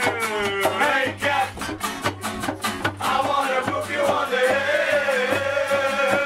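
A live band song: an acoustic guitar strummed in a steady rhythm with a voice singing over it.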